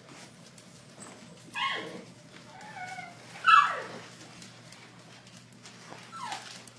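A small dog giving three short high cries that fall in pitch, the loudest about halfway through, with toenails clicking faintly on a hardwood floor.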